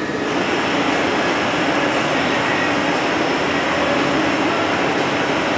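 Steady roar of a glassblowing studio's gas-fired glory holes, furnaces and bench torches, with the exhaust ventilation running; it swells slightly just after the start.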